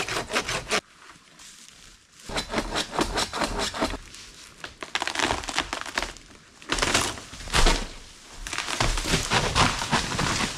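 Handsaw cutting through a dead punga (tree fern) trunk in spells of quick, even strokes, about four a second, with short pauses between. About seven seconds in there is a louder crack and crash as the trunk gives way.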